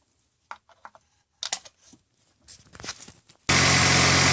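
A few light clicks and rustles of hands working in the engine bay, then about three and a half seconds in the 2000 Honda CR-V's 2.0-litre four-cylinder engine comes in abruptly, idling steadily. It is running on a temporary spark plug in cylinder two, which cures the random misfire.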